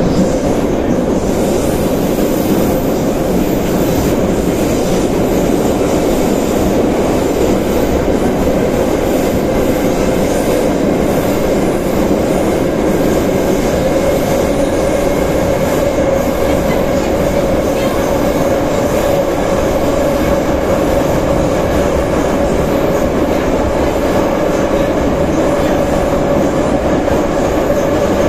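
Soviet-type 81-717/714 metro train running at speed through a tunnel, heard from inside the car by the end door. The loud, steady running noise of wheels on rail carries a constant whine that rises slightly in pitch partway through.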